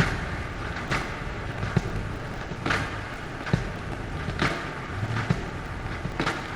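Ambient experimental music: a steady hiss-like noise bed with a soft knock about once a second, over a faint steady hum.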